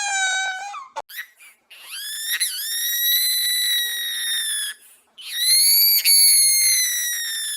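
Baby crying in long, high-pitched wails. One cry trails off about a second in, and two long drawn-out cries follow, with short breaths between.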